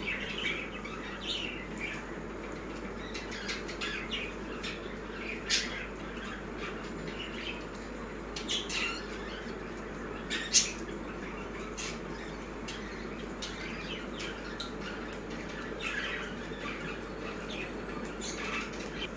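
Pet budgerigars chirping and squawking in short, scattered calls, with a few sharp clicks, the loudest about ten seconds in. A steady low hum runs underneath.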